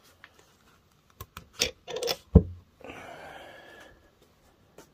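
Small metal engine parts being handled on a workbench: a few light clicks and knocks, then one sharp clunk about two and a half seconds in, followed by a second or so of soft rubbing.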